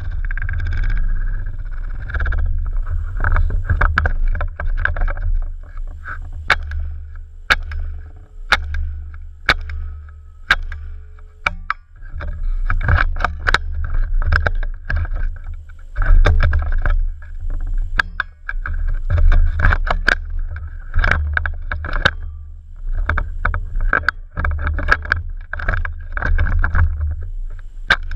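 A CZ858 rifle fitted with a .22 LR conversion kit firing repeated sharp gunshots at irregular intervals, some in quick strings. A steady low rumble of wind on the microphone runs underneath.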